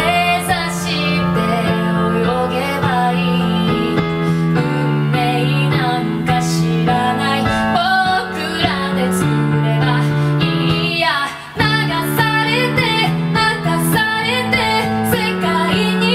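A woman singing a ballad in Japanese to her own piano accompaniment, the voice gliding over steady held chords, with a brief break in the sound near the middle.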